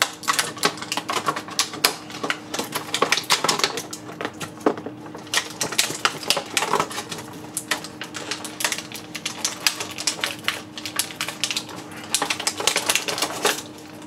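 Clear plastic packaging crinkling and crackling in rapid, irregular bursts as an action figure is pulled and worked free of it.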